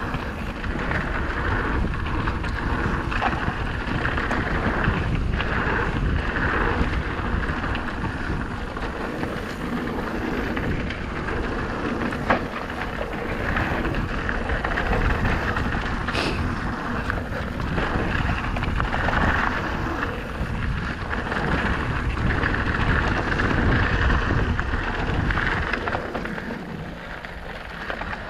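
Wind buffeting the action-camera microphone while the mountain bike's tyres roll over a loose dirt trail at speed, with the bike rattling and a few sharp clicks along the way.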